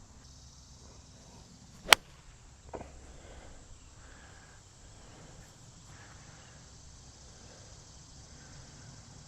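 A single sharp crack of a choked-down 8-iron striking a golf ball about two seconds in, followed by a fainter click a moment later. Insects chirr steadily in the background.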